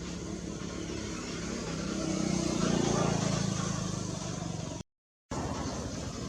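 A motor vehicle's engine hum over outdoor background noise, swelling louder about halfway through as if passing, then cutting out completely for about half a second near the end.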